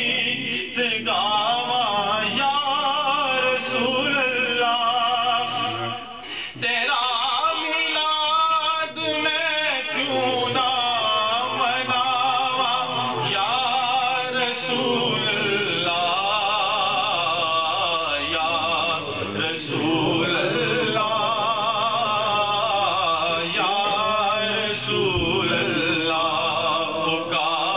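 A man singing a naat unaccompanied, a slow solo vocal line with wavering, ornamented pitch, with a brief break for breath about six seconds in.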